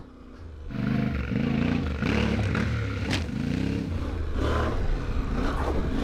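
Yamaha Ténéré 700's parallel-twin engine being ridden, its revs rising and falling again and again. It comes in loud under a second in.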